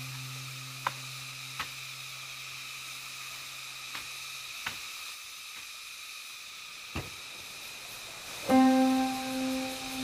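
Instrumental background music: a held low note dies away about halfway through, a few faint sharp clicks fall in the quiet stretch, and a new chord rings out loudly near the end.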